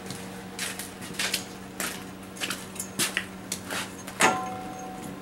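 Plastic fodder trays and their rack being handled and shifted, giving a string of irregular knocks and clatters; one louder knock about four seconds in rings briefly.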